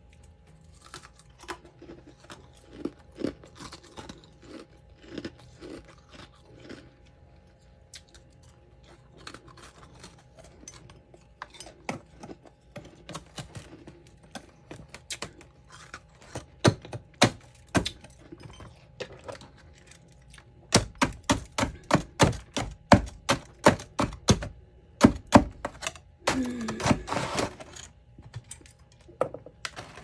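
Metal spoon chipping and scraping packed frost off the inside walls of a freezer: a string of sharp scrapes and knocks, scattered at first, then fast and louder for several seconds past the middle.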